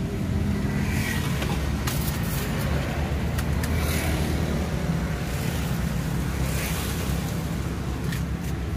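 Steady low rumble of street background noise, with a few faint clicks.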